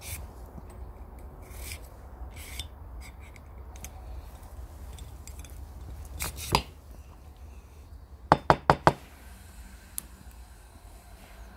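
A small twisted-wire bristle brush on a rod scrubbing through the brass tube of an antique curling iron, in short scratching strokes. A knock comes about six and a half seconds in, then four sharp taps in quick succession, the loudest sounds here.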